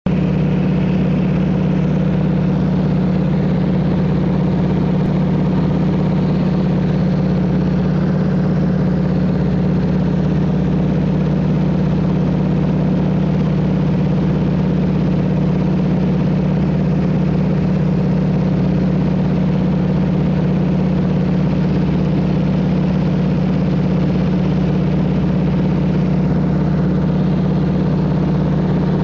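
Floatplane's engine and propeller running at a steady pitch, heard from inside the cabin.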